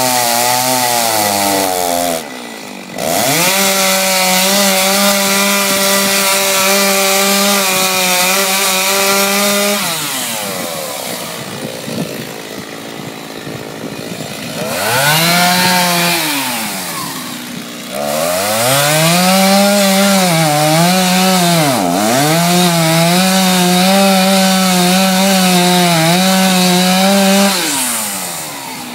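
Two-stroke chainsaw revving to full throttle in long cutting runs and falling back toward idle between them. During the last long run, which stops near the end, the engine pitch dips briefly a couple of times as the chain bogs in the wood.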